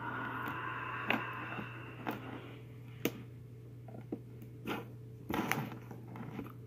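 Knife cutting along the edge of a cardboard box, a scratchy slicing sound for the first couple of seconds, then scattered sharp taps and scrapes as the blade and box are worked.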